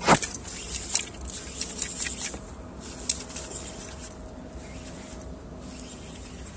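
A bass hooked on a bent fishing rod and fought: a sudden loud swish or splash at the start, then about three seconds of irregular clicks and crackles from the reel and line as the fish pulls, with a sharp snap about three seconds in.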